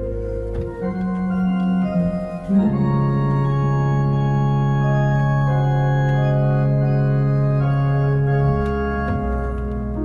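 Church organ playing slow sustained chords, changing chord a few times in the first seconds, then holding one long chord for several seconds before moving on near the end.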